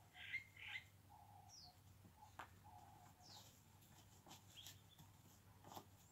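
Faint birdsong: two bright chirps about half a second in, short high calls sliding downward now and then, and short steady mid-pitched notes, over a faint low hum with a few soft clicks.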